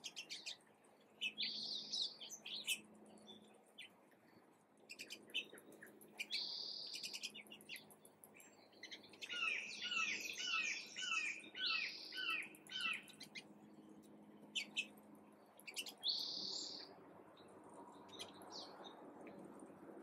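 Several wild songbirds chirping and calling, short high calls coming and going. In the middle, one bird sings a few seconds of quickly repeated, falling notes.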